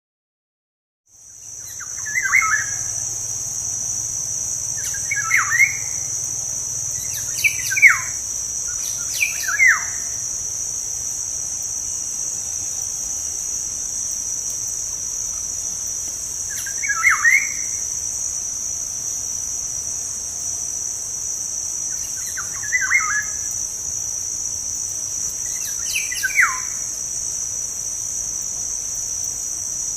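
Black-naped oriole (kepodang) calling: short whistled notes, several sliding downward, repeated about seven times at irregular intervals. Under them a steady, high-pitched insect drone begins about a second in.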